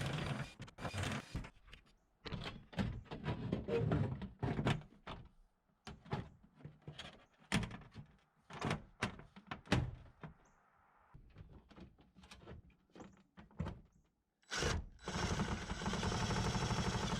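Irregular knocks, thunks and clicks of parts being handled and fitted. A steady mechanical noise sounds briefly at the start and again from about fourteen seconds in.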